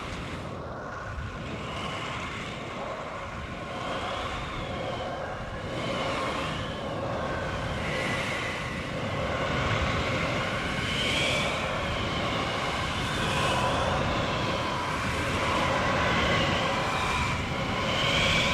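Tornado sound effect: a steady low rumble of wind with high howling whistles that waver up and down, growing gradually louder.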